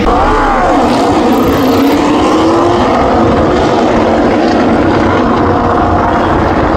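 Racing motorcycle engines at high revs going past on the circuit, their pitch sweeping up and then down.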